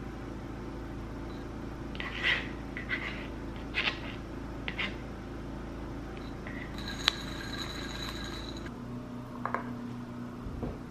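A kitchen knife tapping and scraping on a cutting board as food is chopped, a few separate taps, over a steady air-conditioner hum.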